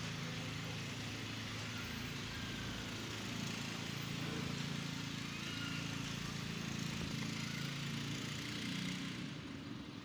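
Steady hum of road traffic with a low engine drone, swelling a little toward the middle and easing near the end.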